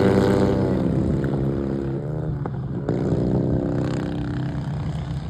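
Racing lawnmower's small engine running at high revs, its pitch sliding down and the sound fading as it eases off, with further shifts in pitch about two and three seconds in.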